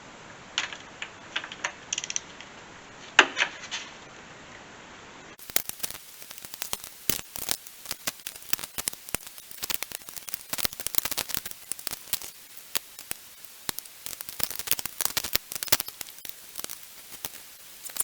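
Hand tools and metal parts clicking, tapping and scraping during hydraulic cylinder disassembly. A few scattered clicks and one sharp knock about three seconds in, then from about five seconds a long run of dense, irregular clicking and scratching.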